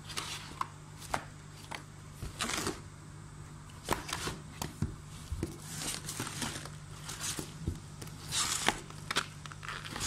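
Glossy paper catalogues being handled and shuffled in a cardboard box: irregular rustles and light knocks of paper and card. A steady low hum runs underneath.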